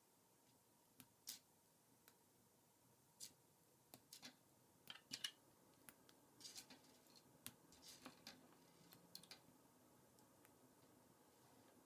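Faint, scattered clicks of K'NEX plastic rods snapping into connectors as pieces are fitted together by hand, with a busier run of clicks through the middle.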